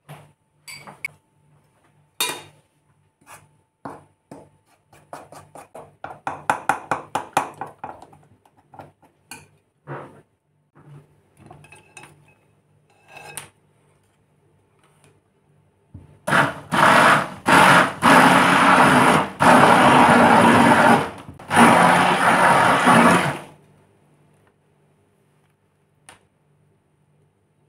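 A metal fork stirring flour-and-milk batter in an enamel bowl, clinking against the bowl, with a quick run of beating strokes. Then a hand-held electric mixer running loudly in the batter for about seven seconds, stopping briefly a few times.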